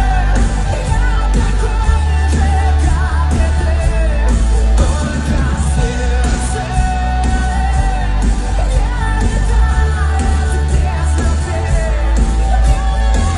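Pop song with a heavy bass beat and a singing voice, played loud.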